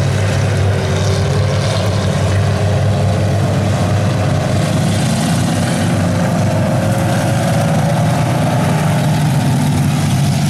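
Engines of a pack of dirt-track stock cars running hard as they race around the oval, a loud, steady drone whose pitch rises and falls as the drivers get on and off the throttle.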